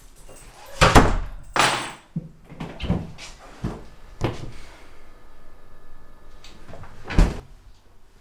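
Small fridge door being opened, with two loud knocks about a second in and a few lighter knocks as things inside are handled, then a sharp thump about seven seconds in as the door is shut.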